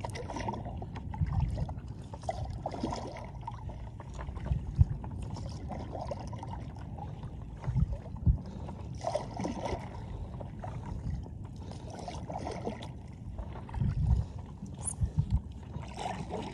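Paddle strokes from a stand-up paddleboard: the blade splashing in and out of the water every few seconds, with water dripping between strokes and a few short low thumps.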